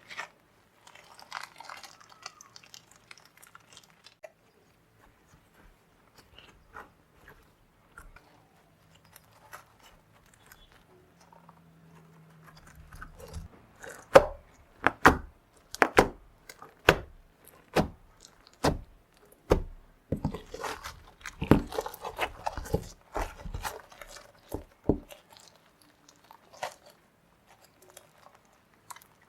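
Clear slime worked by hand: faint sticky crackles at first, then from about halfway a run of sharp pops roughly once a second as the slime is pressed and folded, easing back to faint crackles near the end.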